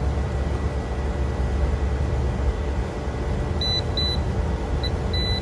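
A steady low hum runs throughout. From about two-thirds of the way in, an electrical voltage tester gives a rapid series of short, high beeps, about two to three a second, which signals that live power is present at the supply.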